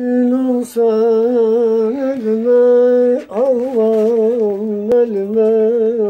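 An elderly man singing a wordless, ornamented opening line of a Turkish folk song: long held notes that waver up and down, broken by two short breaths, the second about three seconds in.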